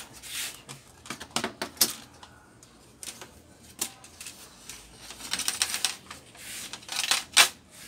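Back cover pieces and board shield of a Sanyo 32-inch LED TV being unclipped and lifted off by hand: an irregular run of sharp clicks, knocks and rattles, with a rustling stretch past the middle and the loudest click near the end.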